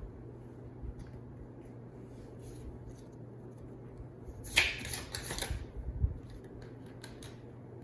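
Tarot cards being handled and shuffled: a few faint clicks, then a brief papery riffle lasting about a second a little past halfway, ending in a sharp tick. A steady low hum underneath.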